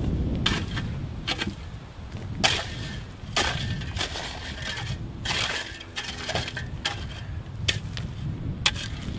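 Steel shovel blade chopping and scraping into hard, rocky clay and gravel by hand, with irregular crunching strikes about one or two a second and stones clinking.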